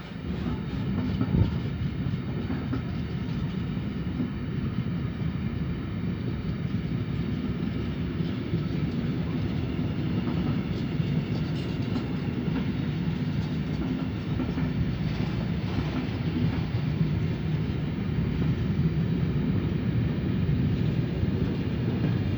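A train passing close by: a steady rumble of wheels on the rails that starts at once and holds throughout, with a few faint clicks.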